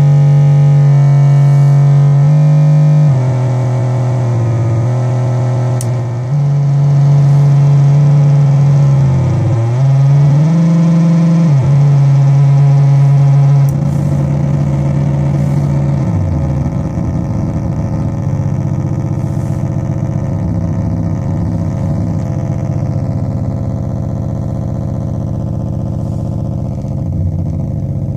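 Metsään Dirty Drone Anarchy vers2.1, a stochastic drone/noise synth with three interacting triangle-wave oscillators, droning on a steady pitched tone that jumps between pitches, dips and swoops back up about ten seconds in. From about fourteen seconds it breaks into a rougher, crackling buzz with a falling glide.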